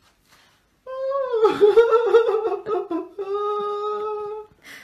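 Black cat yowling: a long drawn-out cry that wavers for a couple of seconds in the middle, then holds one steady pitch.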